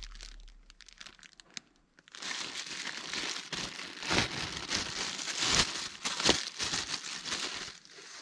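Clear plastic bag crinkling as a new set of spark plug wires is pulled out of it. It starts about two seconds in and runs in uneven handfuls, with a few louder crackles.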